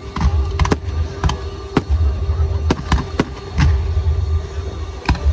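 Aerial fireworks exploding: a quick, irregular series of about ten sharp bangs over deep, rolling booms.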